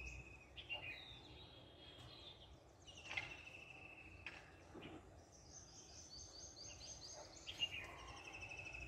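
Small birds calling faintly over a low outdoor background: short high whistled notes, then a quick trill of rapid repeated notes from about five to seven and a half seconds in.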